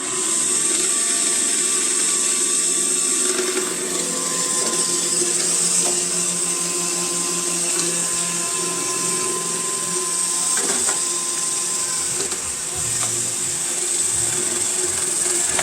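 iRobot Roomba i7 robot vacuum starting up and running with its side brush removed: a steady high whine from the vacuum motor over a mechanical hum. The abnormal noise it was making is still there with the side brush off, so the brush is not its cause.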